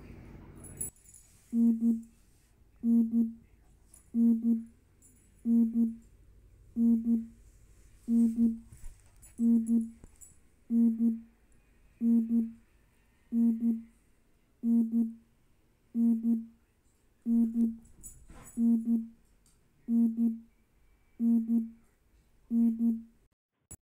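A low buzzing tone sounding in pairs, repeating with machine-like regularity about every 1.3 seconds, seventeen times, starting about a second and a half in.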